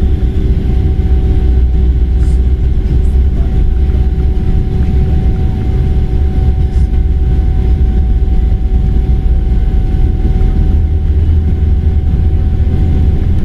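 Jet airliner's engines and rolling rumble heard from inside the cabin as the plane moves along the runway: a loud, steady low rumble with a constant hum over it.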